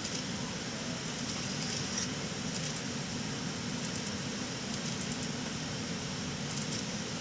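Steady rush of airflow and air-conditioning noise inside an airliner cockpit in cruise flight, with a few faint clicks.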